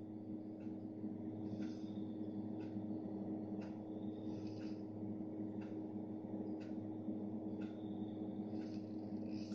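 A steady low hum with a short click about once a second.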